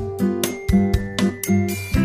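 Background music: pitched keyboard and mallet-like notes over a regular percussive beat.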